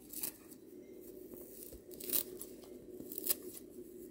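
Kitchen scissors snipping a bunch of fresh dill into a bowl: a few separate crisp snips about a second apart, over a faint steady hum.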